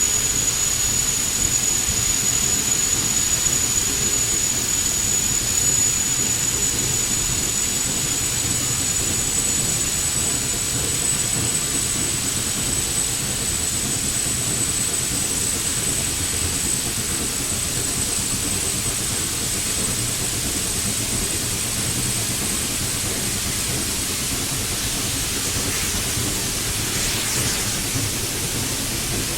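Steam excursion train in motion: a steady rumble and hiss, with a thin high whine that slowly rises in pitch and fades out near the end.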